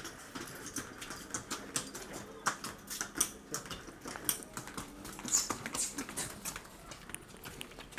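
A young water buffalo bull's hooves clicking on brick paving as it is led at a walk, mixed with the handler's footsteps: a scatter of short sharp clicks, several a second.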